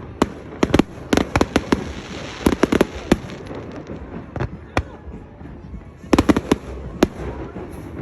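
Loud, irregular sharp bangs and cracks, coming in quick runs of several at a time with short gaps between.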